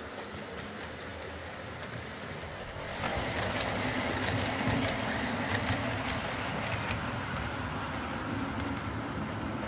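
OO gauge model trains running on the layout track: a steady low hum of motors and rolling wheels that gets louder about three seconds in, with scattered light clicks from then on.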